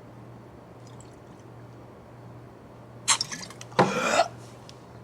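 A man gasping and coughing harshly twice, about three seconds in, after downing a shot of sambuca; before that only a low steady hum.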